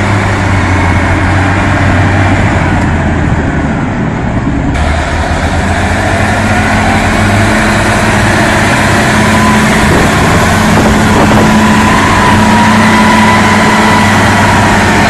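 Large vehicle engine running loudly and steadily, with a low hum; the sound changes abruptly about five seconds in, and a faint steady whine comes in over the engine later on.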